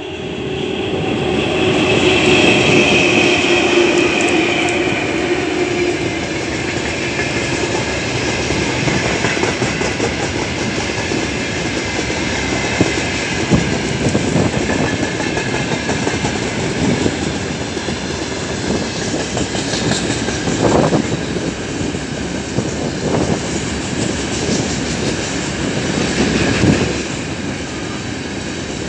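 3ES5K 'Ermak' electric locomotive and a long freight train of loaded gondola cars rolling past. A steady whine from the locomotive fades over the first few seconds. After that the wagons pass with a continuous rumble and the clickety-clack of wheels over rail joints, broken by occasional heavier knocks.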